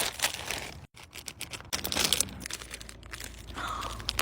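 Snack packaging crinkling and crackling as it is handled, a dense run of quick crackles that drops out briefly about a second in.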